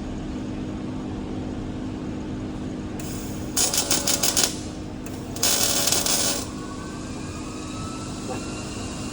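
Two short arc-welding tack welds, each a burst of crackling arc noise about a second long, a second apart, over a steady low machine hum.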